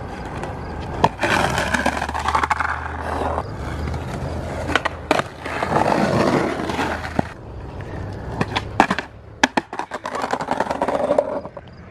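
Skateboard wheels rolling over stamped concrete banks, broken by sharp clacks of the board hitting the ground about a second in, around five seconds in, and several in quick succession near the end.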